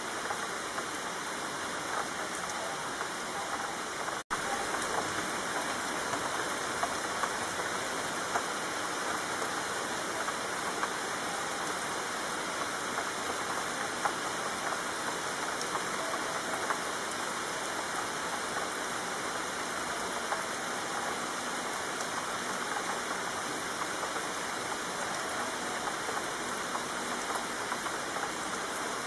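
Steady rain falling, a dense patter of drops, with a momentary cut to silence about four seconds in.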